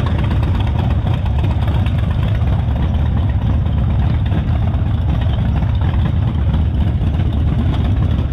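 Harley-Davidson motorcycle engine running steadily, a loud, constant low engine sound with no change in speed.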